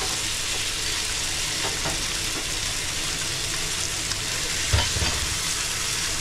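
Whole fish frying in melted butter on an electric griddle: a steady sizzle. A brief low thump sounds near the end.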